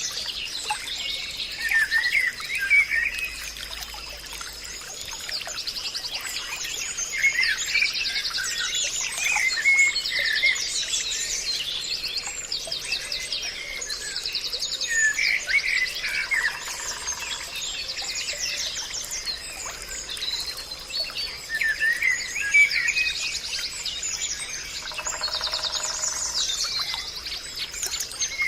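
Several birds chirping and trilling in a forest chorus, with a steady high insect-like whine beneath.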